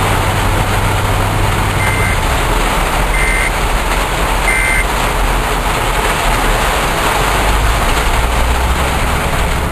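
Heavy downpour falling on a car's roof and windshield, heard from inside the cabin as a steady, loud hiss. Three short, high beeps sound about two, three and four and a half seconds in.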